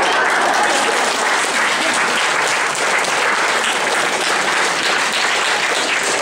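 A room full of people applauding, a steady wash of hand clapping.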